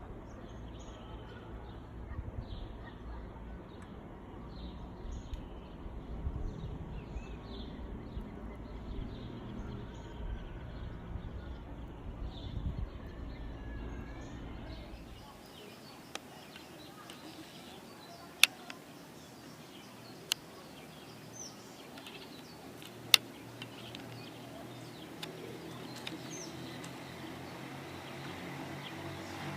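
Small birds chirping with short, repeated high calls over a low rumbling background noise. Midway the rumble drops away, leaving fainter chirps, and three sharp clicks stand out as the loudest sounds.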